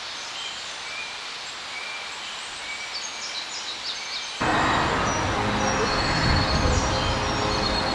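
Outdoor ambience with a faint steady hiss and a few short bird chirps; about halfway through it cuts suddenly to louder wind noise buffeting the microphone.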